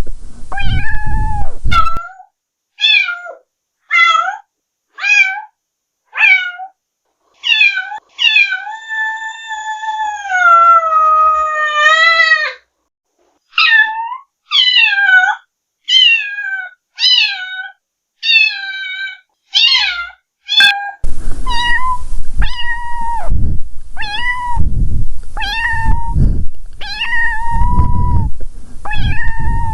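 A cat meowing over and over, mostly short meows about one a second, with one long drawn-out meow that falls in pitch midway. In the last third the meows come over a rumbling background noise.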